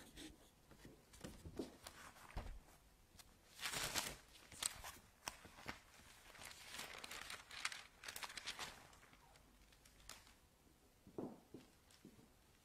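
Quiet paper rustling and crinkling of book pages being leafed through, with a few light clicks, densest in the middle.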